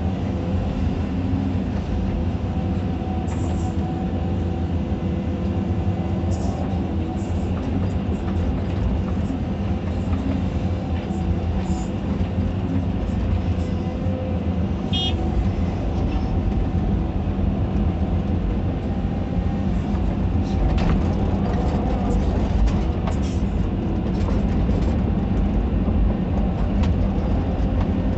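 Caterpillar 320D2 hydraulic excavator's diesel engine running at a steady drone while the machine works, heard from inside the cab, with a few faint clicks.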